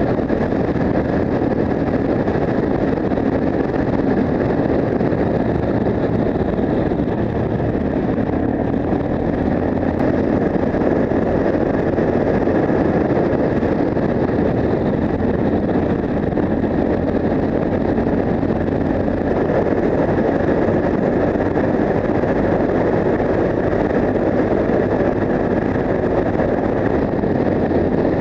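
Yamaha TW 125's air-cooled single-cylinder four-stroke engine running steadily through an Akrapovic exhaust while riding along, mixed with wind rushing over the microphone.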